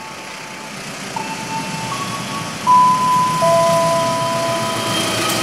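Locomotive horn of an approaching passenger train, held notes that change pitch several times and become loud about halfway through.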